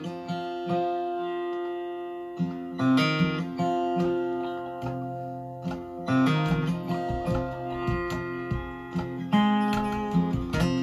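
Recorded music with plucked and strummed acoustic guitar, played back over a home hi-fi system's loudspeakers in a small room.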